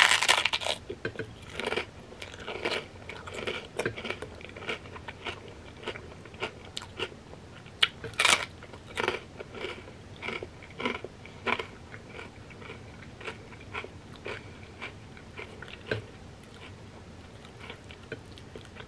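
Crunching and chewing of a fried wonton chip heaped with creamy crab rangoon dip: a loud crunch at the first bite and another about eight seconds in, with irregular smaller crunches of chewing between them that thin out near the end.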